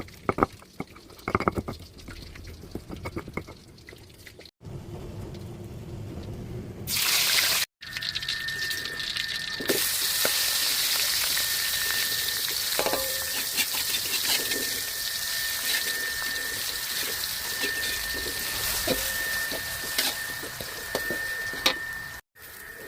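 Tap water running steadily into a kitchen sink, after a few knocks and clatters of kitchenware near the start.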